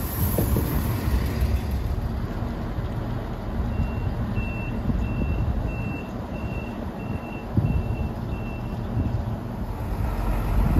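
Diesel engines of a Siemens Desiro class 642 railcar running with a steady low rumble. About four seconds in, a row of about eight short, high beeps, evenly spaced, sounds as the door-closing warning.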